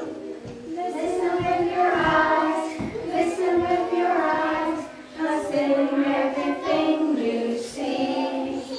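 A group of young children singing a song together, with a short break between phrases about halfway through.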